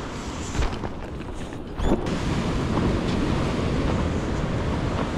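Surf washing over a rocky sea ledge, with wind buffeting the microphone. A couple of short knocks come about half a second and two seconds in.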